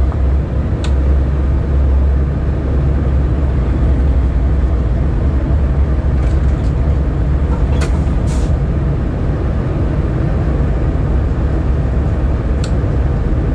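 Diesel freight locomotive's engine running with a steady low drone as the train pulls slowly forward. A few short sharp clicks come about a second in, around eight seconds and near the end.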